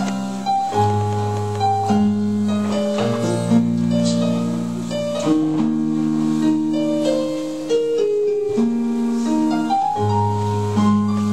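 Slow keyboard music: held chords over a low bass line, changing every second or two.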